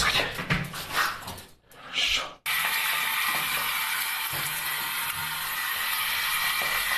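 Scuffling and a few thumps, then about two and a half seconds in a shower spray starts abruptly and runs steadily, pouring water onto a pug.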